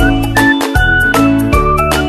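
Background music with a steady beat, a held bass line and a melody on top.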